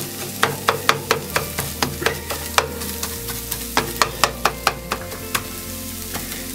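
Plastic slotted spatula chopping fried egg into bits in a non-stick frying pan: two runs of quick sharp taps on the pan with a short pause between them, over the soft sizzle of the egg.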